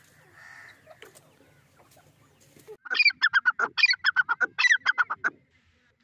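Grey francolin calling. About three seconds in comes a loud, fast run of sharp, high notes in repeated phrases, lasting about two and a half seconds.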